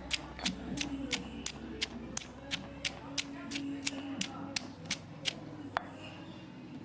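A knife chopping on a cutting board in a steady rhythm of sharp strokes, about three a second, stopping about five seconds in with one last stroke shortly after.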